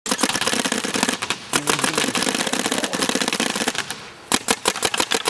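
SuperION (Smart Parts Ion-based) electropneumatic paintball marker firing rapidly: a dense rattle of shots for about four seconds, then after a short break, separate sharp shots at about eight a second.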